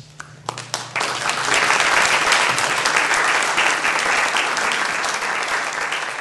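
Audience applauding: a few scattered claps, then full applause swelling in about a second in and holding steady, easing slightly near the end.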